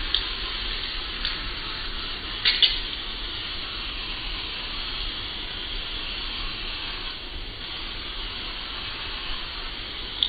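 Morphe setting spray misting onto a face: a steady hiss, with a few short clicks, the loudest a double click about two and a half seconds in.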